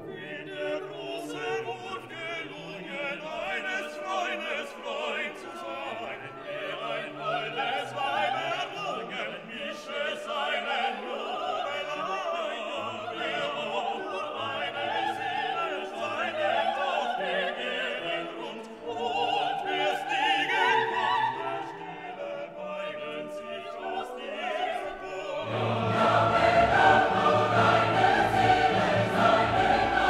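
Background music: a classical piece with singing, growing fuller and louder near the end.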